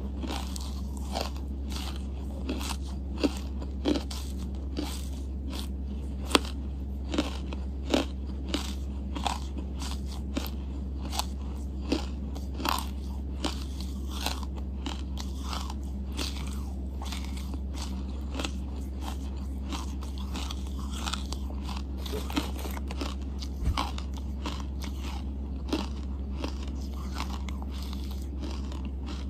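Close-miked chewing of charcoal: irregular crunches and sharp clicks in the mouth, loudest in the first third, over a steady low hum.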